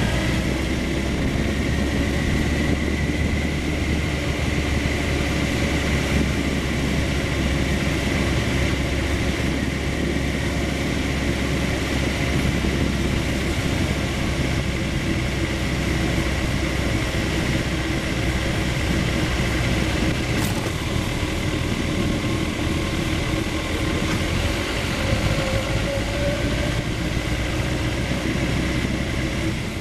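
Sport motorcycle engine running steadily at low revs while riding slowly, with a constant rush of wind and road noise. A brief rising note near the start marks a little throttle.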